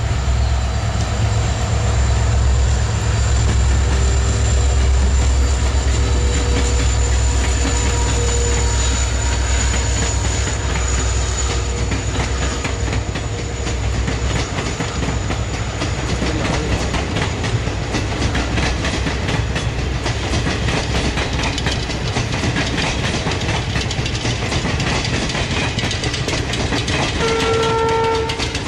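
A WDP4 diesel-electric locomotive, with its 16-cylinder two-stroke EMD engine, passes under power with a heavy low rumble that fades after about twelve seconds. Its express coaches then roll by with a steady clickety-clack of wheels over rail joints, and a short horn sounds near the end.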